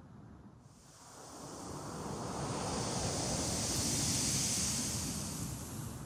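Wind gusting over desert sand, with a low rumble under a high hiss of blowing sand grains. The hiss swells in about a second in, peaks past the middle and eases off near the end.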